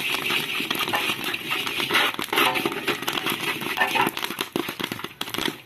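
Popcorn kernels popping in hot sand in an iron kadhai: a dense, irregular crackle of many small pops.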